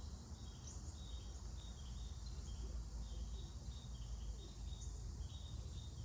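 Insects chirping steadily, a short high chirp repeating about twice a second over a low rumble.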